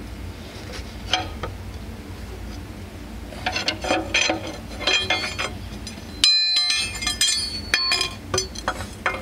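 Steel bar clinking and clanking against the lugs of a heavy-duty Eaton Fuller clutch's adjusting ring as it is levered around, to move the throwout bearing closer and take up too much clutch-brake clearance. Scattered sharp metal knocks come in clusters, with the loudest, ringing strike about six seconds in.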